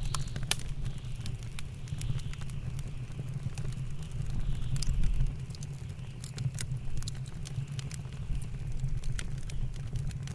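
Wood fire crackling in a fireplace, with frequent sharp pops, over the low steady rumble of a blizzard wind outside.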